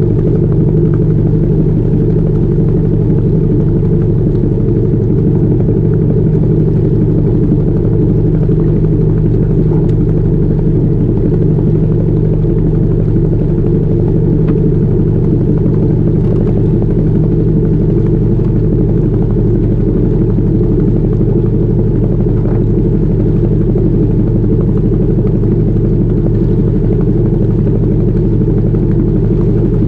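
Albin Vega sailboat's auxiliary engine running at a steady speed as the boat motors along, a loud, even low hum that does not change.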